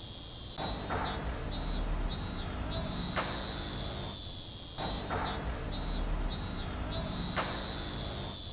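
Cicada song in a repeating cycle. Three short, evenly spaced calls are followed by a long drawn-out buzz that sinks slightly in pitch, and the pattern starts again about every four seconds. A low steady hum runs underneath.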